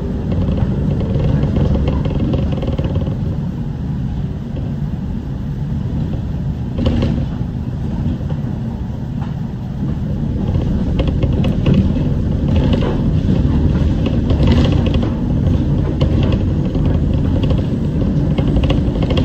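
City bus driving through town, heard from inside the cabin: a steady low rumble of engine and road noise, with a few brief knocks or rattles partway through.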